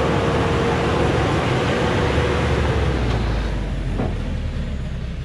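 Loaded logging truck's engine working hard as it climbs a muddy dirt slope, with a steady whine over the engine noise. The sound fades as the truck pulls away, from about three seconds in.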